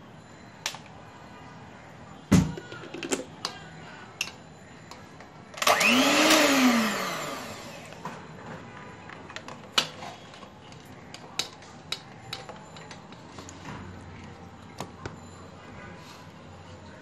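An electric hand mixer runs briefly about six seconds in, its motor whirring up in pitch and winding down over about a second and a half. Around it are scattered clicks and knocks as the mixer is handled, the loudest about two seconds in.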